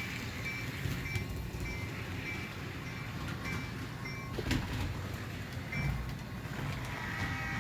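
Sound-equipped HO-scale Athearn Genesis F7A model diesel locomotive running on its track, its on-board sound decoder playing a diesel engine rumble. Short high chiming tones repeat at uneven intervals through the first part.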